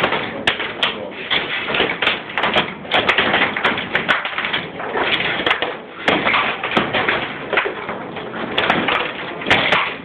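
Foosball table in fast play: the hard ball clacking off the plastic player figures and the table walls, with the steel rods knocking and rattling as they are spun and slammed, a dense, irregular run of clacks and knocks.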